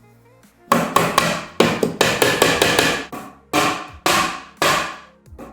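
Hammer knocking on wooden furniture parts: a run of sharp knocks, about four a second in short groups with brief pauses, starting about a second in.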